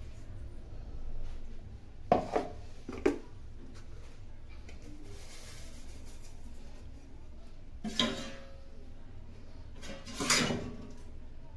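Metal containers knocking and clinking against a stainless steel bowl as spices are tipped in: three sharp clanks about two to three seconds in, a faint patter of nigella seeds pouring around the middle, and two louder ringing clinks near the end.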